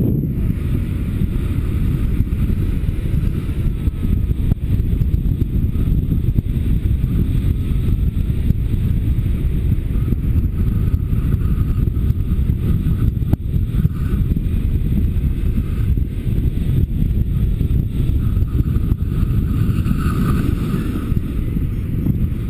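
Wind rushing over the microphone of a camera on a paraglider in flight: a loud, steady low rumble of buffeting.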